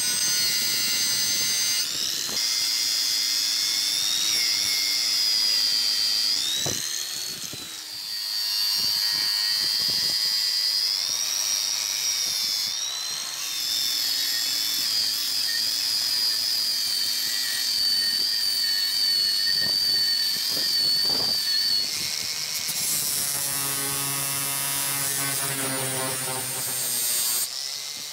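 Angle grinder running at high speed with its abrasive wheel against a rusty steel ripping tine, stripping the rust. The whine sags in pitch about seven seconds in as the wheel is pressed into the metal, then recovers.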